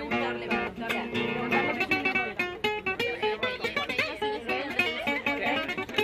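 Spanish acoustic guitar played solo: quick runs of picked notes mixed with strummed chords.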